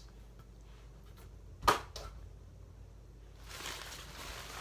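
Handling noise: one sharp knock about a second and a half in, then a bag rustling from about three and a half seconds in.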